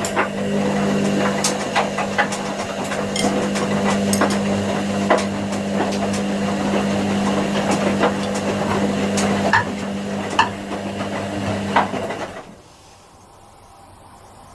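Washing machine running a cotton 20 °C wash: a steady motor hum with frequent clicks and knocks from the tumbling drum. About twelve seconds in the hum stops and it goes much quieter.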